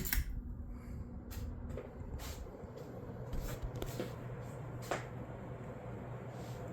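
1986 Homestead Universal ceiling fan running on high speed, with a steady low motor hum and a few scattered light clicks.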